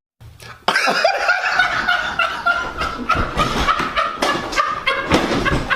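Snickering, giggling laughter, high-pitched and unbroken, starting just under a second in after a brief silence.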